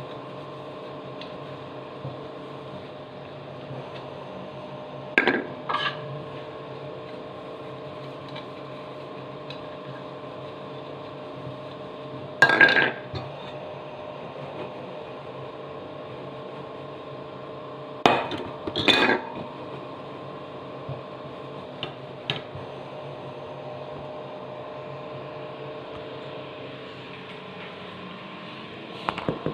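Washed plastic exhaust fan parts being dried and handled at a stainless steel sink: a handful of separate knocks and clatters as the pieces bump the sink and each other, over a steady hum.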